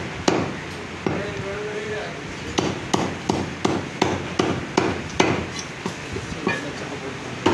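Heavy meat cleaver chopping mutton into small pieces on a round wooden chopping block: sharp chops, one near the start, then after a short pause a steady run of about three a second, thinning out near the end.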